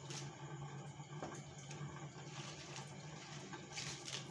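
Bok choy being handled at a sink: soft rustles and snaps as leaves are pulled off the stalks and dropped into a plastic colander, with a brief louder crinkle near the end. A steady low hum runs underneath.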